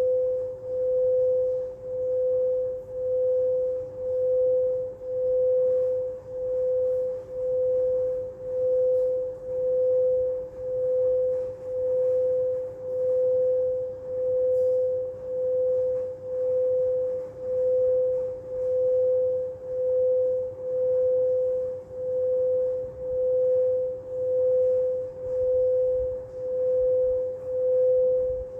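Singing bowl sounding one sustained, steady tone that swells and fades a little more than once a second.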